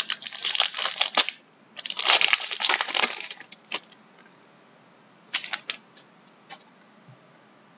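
Plastic wrapping around a stack of trading cards crinkling as it is torn and pulled off, in two spells of dense crackling over the first four seconds. A few light clicks follow about five and a half seconds in as the cards are handled.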